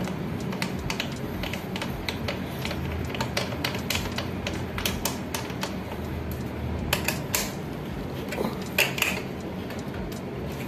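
Light, irregular metallic clicks and ticks as a crank puller is turned by hand into the threads of a square-taper crank arm and a wrench is set on it, over a steady low hum.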